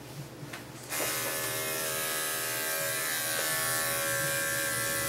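Electric dog-grooming clippers switched on about a second in, then running with a steady hum as they are worked over the dog's coat.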